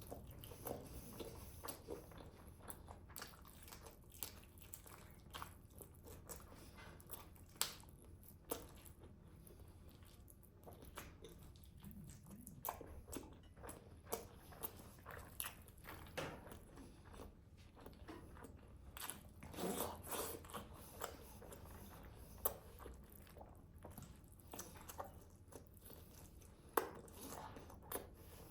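Close-miked eating of grilled chicken: chewing and biting, with many short, sharp mouth clicks scattered throughout and a louder patch of chewing about two-thirds of the way through.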